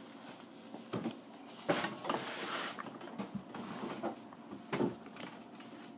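Handling of a plastic Play-Doh playset: a few irregular small knocks and clicks, with some rustling, as the Play-Doh hair on the Minion figure is worked.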